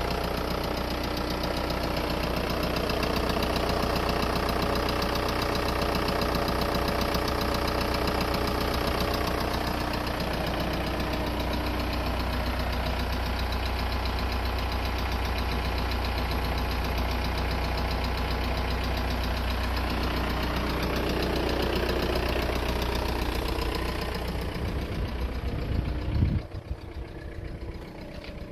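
Volkswagen Golf IV 1.9 TDI four-cylinder diesel engine idling steadily with a knocking clatter, the strange noise in question. Near the end it cuts off after a brief surge.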